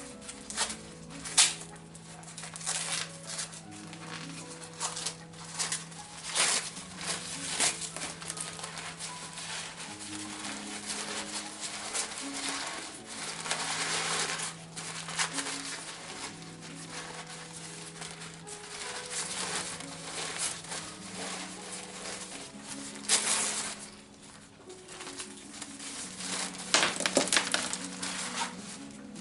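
Packaging around a potted orchid crinkling and rustling in fits and starts as it is unwrapped, with a few sharper crackles, over soft background music with held notes.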